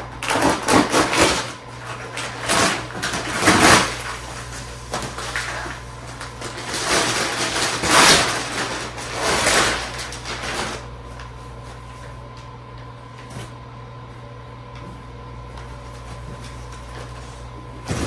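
Sofa cushions being handled and pushed into place: several bursts of rubbing and rustling over about the first ten seconds, then only a faint steady hum.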